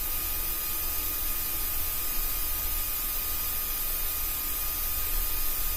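Steady cockpit noise of an airliner on the ground after landing: an even hiss with a low rumble and a few faint steady tones, heard through the cockpit intercom recording.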